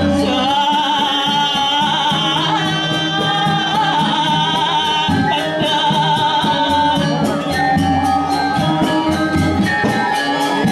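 Balinese gamelan playing the accompaniment for a Telek dance, with a high, wavering melody line over layered metallic tones; quick, even struck strokes grow dense again in the last few seconds.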